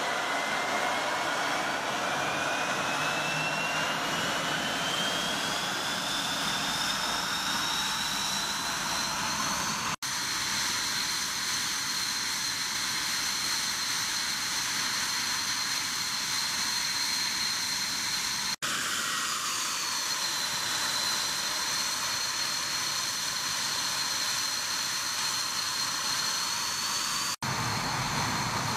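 Dassault Mirage 2000's single SNECMA M53 turbofan starting up: a high whine rises in pitch over about ten seconds as the engine spools up, then holds steady at idle. The sound drops out briefly three times, and after the second dropout the whine dips and settles again.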